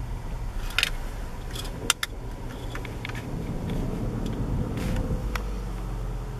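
Car driving on a snowy road, heard from inside the cabin: steady low engine and road rumble, with a few sharp clicks and rattles about one and two seconds in.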